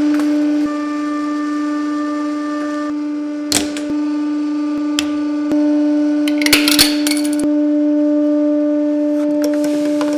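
A 150-ton hydraulic press running with a steady hum from its hydraulic pump, while the press crushes household items and they snap and crack. The loudest of these is a burst of crunching around seven seconds in, as stacked plastic cups give way.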